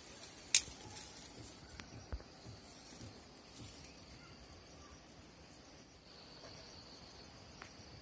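Insects chirring steadily at a high pitch in the undergrowth. About half a second in comes one sharp click, followed by a few softer clicks and knocks over the next few seconds.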